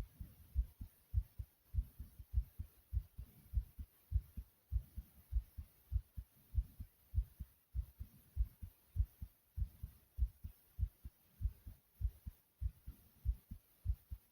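A human heartbeat pounding hard and fast: low double thumps (lub-dub) repeating steadily at about two beats a second.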